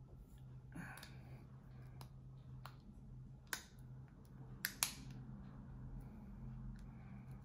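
A handful of small sharp clicks from the American Blade Works Model 1 V5 flipper knife's parts as the pivot is worked into the blade and the blade moved around during reassembly; two close together about four and a half seconds in are the loudest. A soft rustle of hands on the handle about a second in.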